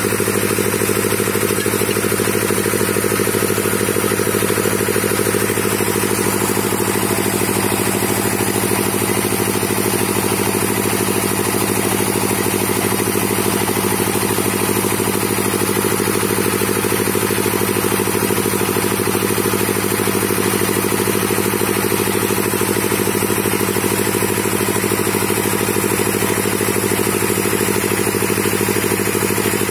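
Stationary engine powering a hydraulic auger drilling rig, running steadily at a constant speed with an even, pulsing beat.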